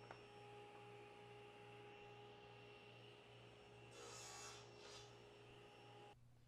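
Near silence: a faint steady electrical hum, with a brief faint rustle about four seconds in.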